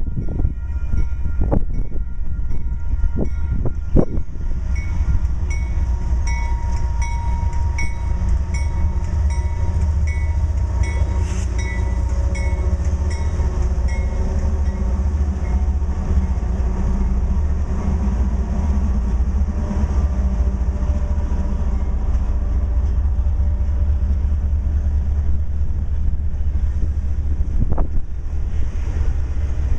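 Union Pacific freight train passing close by: a steady heavy rumble of locomotives and cars, with sharp wheel clicks on the rail in the first few seconds and again near the end.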